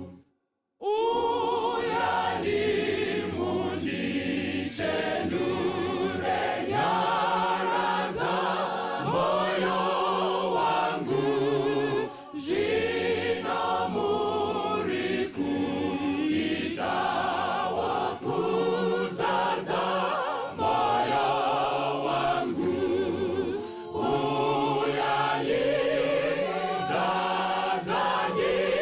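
A choir singing in harmony, phrase after phrase, with short breaks between phrases. The sound cuts out completely for under a second at the start before the singing comes in.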